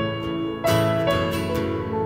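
Live band playing an instrumental passage of a slow worship song: strummed acoustic guitar with keyboard chords, a new chord struck partway through.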